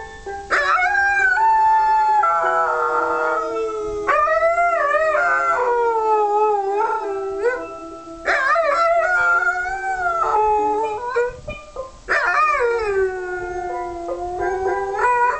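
A dog howling along to a steel pan being played: about four long howls, each sliding up and down in pitch, over the pan's ringing notes.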